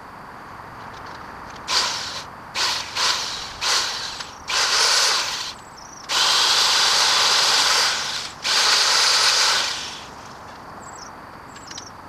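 MacAllister MPS750S-2 electric pole saw with a 20 cm Oregon bar and chain, running in bursts: four short blips of the trigger, then three longer runs of one to two seconds each, before it stops.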